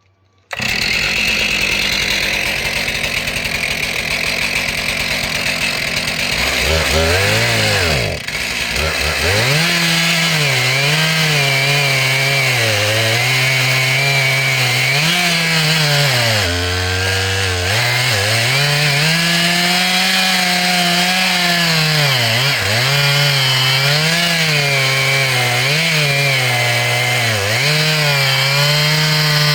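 Stihl MS441 Magnum two-stroke chainsaw with a 36-inch bar and a new chain, starting suddenly about half a second in at high, steady revs. From about seven seconds it is cutting wood, its engine pitch dropping under load and picking back up again and again.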